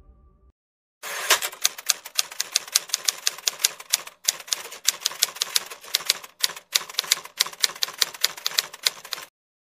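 Typewriter sound effect: a fast run of key clacks, about five or six a second with a couple of short breaks, accompanying on-screen text being typed out.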